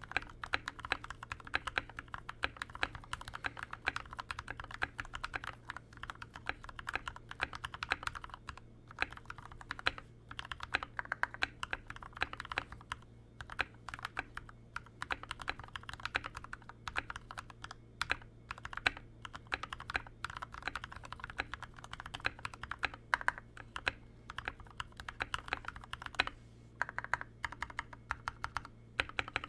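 Continuous typing on an Anne Pro 2 mechanical keyboard with lubed Gateron Brown switches and lubed, band-aid-modded stabilizers: a fast, irregular run of key clicks with a few brief pauses, and a faint steady hum underneath. The mods keep it free of the pinging and stabilizer rattle of the stock board.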